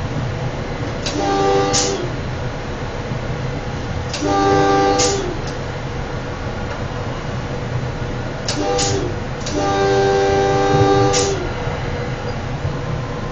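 Electric commuter train's multi-tone air horn sounding four blasts in a long, long, short, long pattern, the signal for a grade crossing, over the steady rumble of the train running on the rails. The short third blast comes quickly before the last, longest one.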